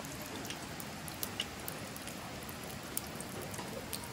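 Rain pattering steadily, with scattered sharp drips ticking through it.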